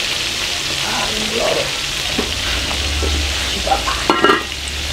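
Food frying in hot oil in a pan: a steady sizzle, with a short clatter of clicks about four seconds in.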